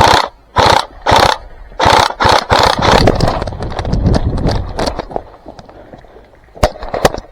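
A player scrambling and crawling over the ground, with gear and clothing rustling and scraping: quick heavy strokes at first, a dense stretch of scraping in the middle, then scattered clicks and two sharp knocks near the end.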